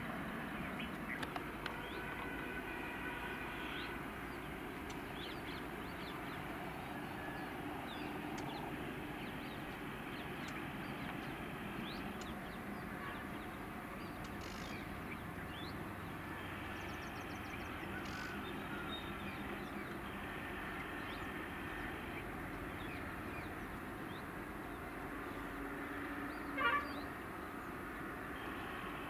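A distant train approaching, heard as a steady low rumble, with birds chirping faintly and one brief horn toot near the end.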